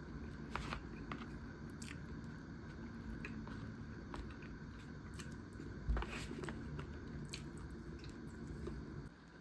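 Close-up eating sounds from a bento: soft biting and chewing with scattered light clicks, and a single dull thump about six seconds in, over a faint low hum.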